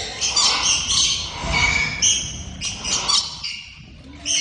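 A flock of small birds chirping and squawking: a dense flurry of short, high calls, easing into a brief lull near the end.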